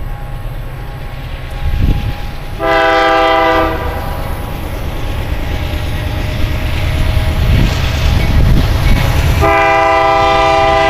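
Air horn of an approaching CN diesel locomotive sounding twice, a short blast of about a second and then a longer one near the end, each a chord of several steady tones. Underneath is the low rumble of the oncoming train, growing slightly louder.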